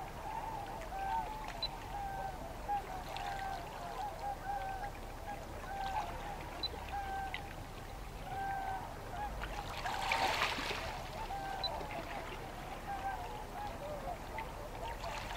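A flock of waterfowl calling over and over in short honking notes, many voices overlapping. Water trickles faintly underneath, and a brief rush of noise comes about ten seconds in.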